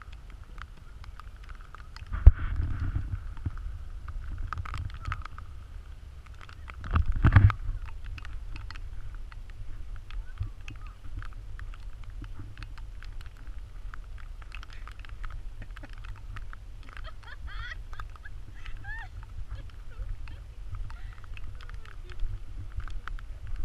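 Wind rumbling on the microphone of a camera carried outdoors, with two louder buffets about two and seven seconds in.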